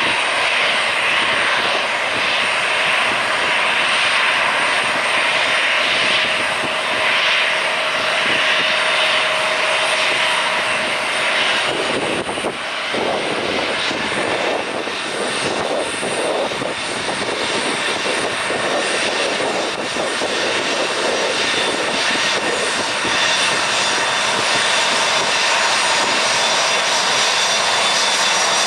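Jet airliner engines running steadily at taxi power, a continuous whine and rush. About twelve seconds in the sound changes abruptly, and after that it comes from a twin-engine Airbus A320-family jet taxiing past.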